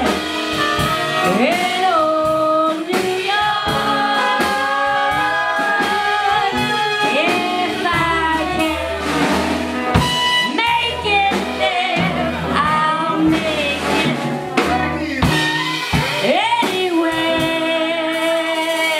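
Music with singing over a band, with a steady bass line underneath.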